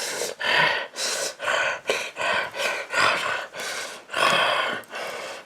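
A man sobbing and gasping in fright: a quick run of short crying bursts, roughly two a second.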